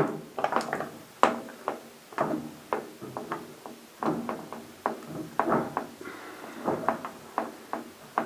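Irregular light metallic clicks and knocks, about two a second, some with a brief ring: a greased front axle being worked through the front wheel hub and fork legs of a motorcycle.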